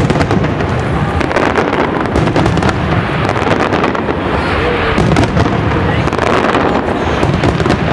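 Aerial fireworks going off in a dense, continuous run of bangs and crackling.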